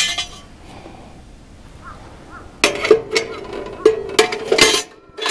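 Metal wood-stove parts knocking and clanking together as they are handled and fitted: one clank at the start, then a quick run of knocks with a ringing metallic tone in the second half.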